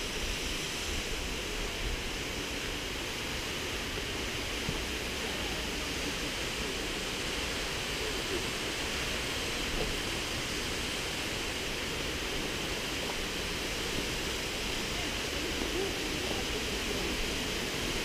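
Steady rush of a stream and waterfall: an even, unbroken noise of falling and flowing water.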